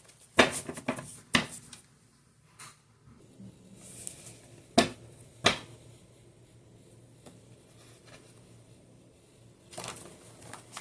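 Tarot cards being handled, giving a few sharp card snaps and flicks: a quick cluster near the start and two louder snaps around the middle.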